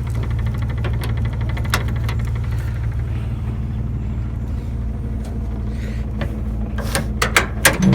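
Truck engine running steadily, a low rumble, with a few sharp clicks and knocks near the end.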